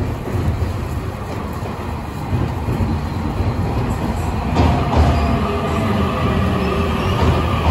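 Keio Inokashira Line 1000-series electric train pulling into the platform, its wheels and running gear rumbling steadily. About halfway through, a higher whine joins in and holds as the cars pass close by.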